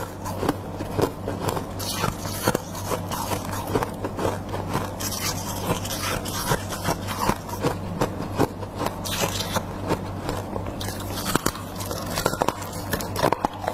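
Close-miked chewing and crunching of freezer frost: a dense run of crisp, crackling crunches and bites, over a steady low hum.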